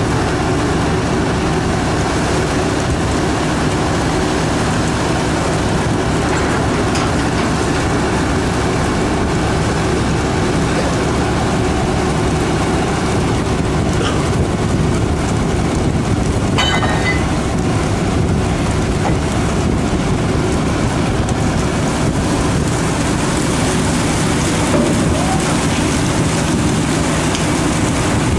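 Steady drone of a fishing trawler's engines and deck machinery, with a constant rushing noise over it, and a brief high squeal about sixteen seconds in.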